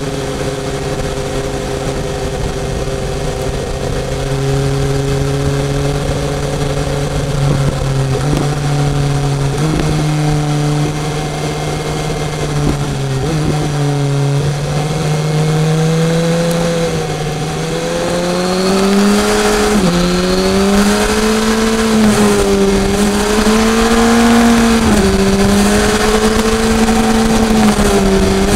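BMW S1000R's inline four-cylinder engine running under way, its pitch fairly steady with a few sudden drops in the first half. From about two-thirds of the way in it climbs and drops back sharply several times.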